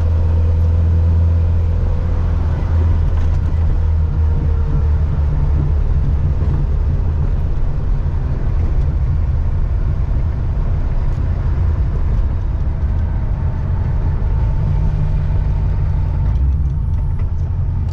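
ProCharger-supercharged Corvette C6 LS3 V8 at a steady low cruise: a deep, even drone with no revving.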